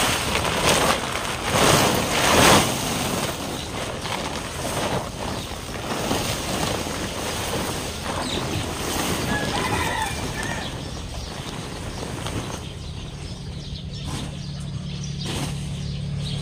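Plastic tarpaulin rustling and crackling as it is pulled and spread over sacks, loudest in the first three seconds, then quieter handling noise. A low steady hum comes in near the end.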